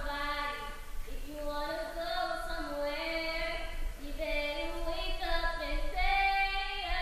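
A girl singing a slow melody solo in long held notes, with no instruments heard.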